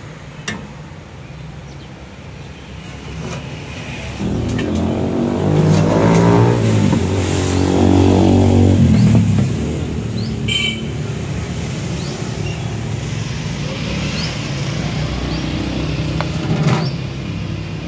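A motor vehicle's engine passes close by, getting louder about four seconds in and fading away after about nine seconds, over steady street traffic noise. A few sharp metallic clinks of a steel ladle against steel pots and plates are heard.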